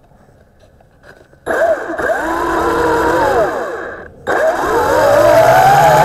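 WLToys V262 quadcopter's motors and propellers, heard up close from the camera strapped to the craft. They spin up about a second and a half in with a whine that rises and falls as the throttle changes, cut out briefly near four seconds, then spin up again with a rising whine.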